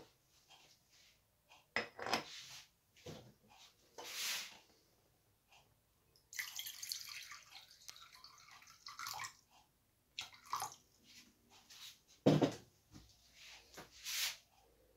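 Water poured from a plastic jug into a small stainless steel saucepan, a splashing pour lasting about three seconds in the middle. Short knocks and clinks of pan and kitchenware come before and after it, the loudest a knock near the end.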